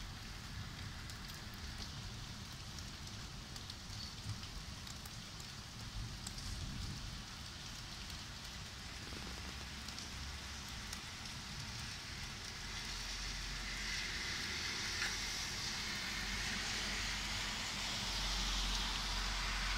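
Steady heavy rain falling on a street and nearby surfaces, with scattered drops ticking close by. It grows louder over the last several seconds.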